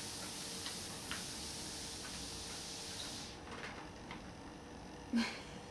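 Motorised treadmill running with a dog walking on the belt: a steady hiss with faint, soft ticks. About three seconds in the hiss drops away, and a short, louder sound comes near the end.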